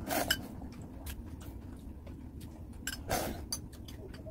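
Eating sounds: chewing, with scattered light clicks of utensils against dishes.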